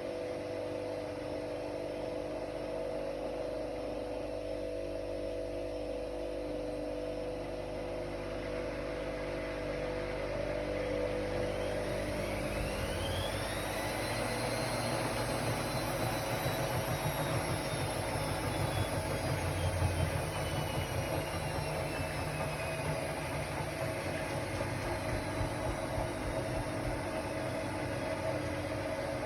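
Ariston Margherita 2000 washer-dryer running, with a steady hum. About twelve seconds in, a motor whine rises steeply, then slowly sinks again, under a low rumble that grows louder through the middle.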